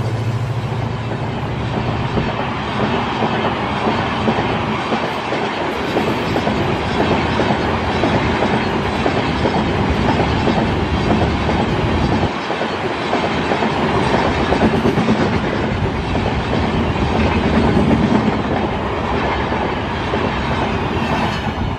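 Express-train passenger coaches passing close at about 86 km/h: a steady loud rush of rolling wheels with rapid clickety-clack over the rail joints.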